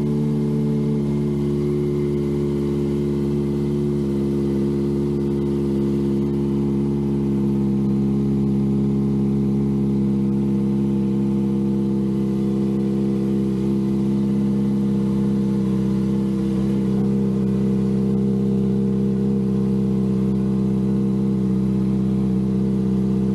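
Kawasaki ZX-25R's 250 cc inline-four engine idling steadily through an aftermarket slip-on exhaust, a constant even note with no revving.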